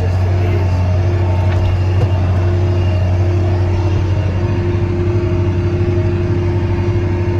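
Steiger Panther 1000 tractor's diesel engine running steadily under way: a constant low drone with a steady tone above it.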